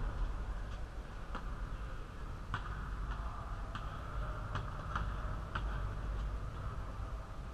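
Basketball bouncing on a hard gym floor as a player dribbles, sharp knocks at an uneven pace of one or two a second, over a steady background hum.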